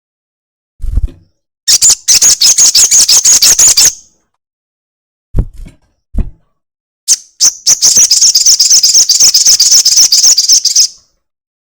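A sogok ontong (crimson sunbird) gives long, rapid chattering trills of sharp, high notes in two bouts: one of about two seconds near the start and a longer one of about four seconds in the second half. A few short low thumps come between them.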